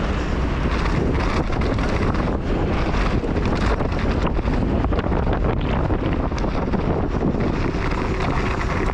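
Wind buffeting the camera microphone over the rattle and knocking of a downhill mountain bike rolling fast over dirt and gravel, with tyre noise and many small knocks from the bike throughout.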